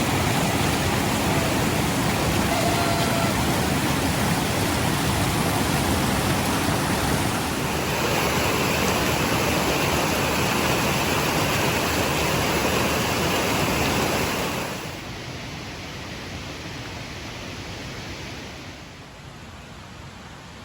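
Steady rushing of running water, loud and even, that drops to a lower level about three-quarters of the way through and again near the end.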